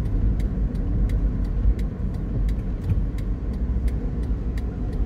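Car interior noise while driving on a rain-wet road: a steady low rumble of tyres and engine, with a sharp ticking repeating evenly about three times a second.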